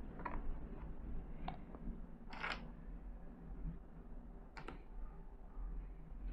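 Faint handling sounds as cut melon pieces are moved around on a plastic cutting board: a few light taps and one short scrape about two and a half seconds in, over a steady low hum.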